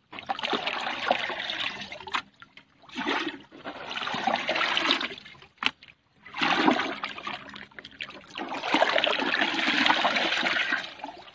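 Liquid fertilizer solution pouring from a bucket into a large tub of the mix, splashing and churning. There are three long pours of about two to four seconds each, with short breaks between them.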